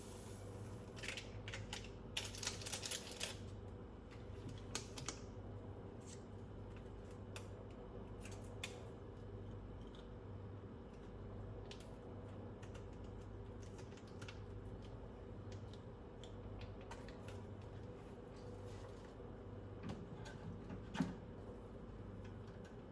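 Scattered light clicks and taps of small objects being handled, with a quick cluster of them about two seconds in and one sharper tap near the end, over a steady low hum.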